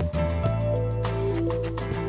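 Background music: a song with a stepping melody of held notes over a sustained bass and a regular beat.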